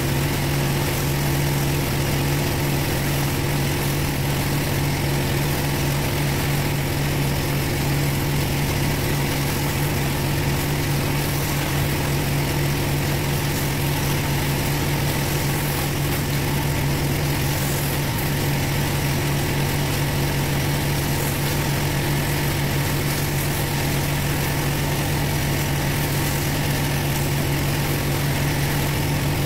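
Pressure washer engine running steadily with a constant hum, under the hiss of a rotary surface cleaner's water jets on block paving.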